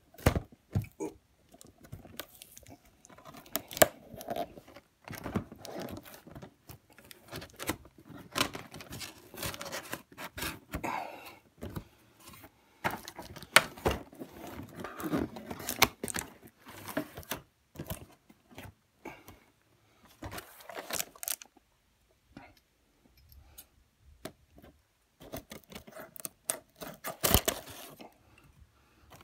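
Cardboard toy box and plastic packaging being handled and opened: irregular rustling, crinkling and tearing with sharp clicks and knocks.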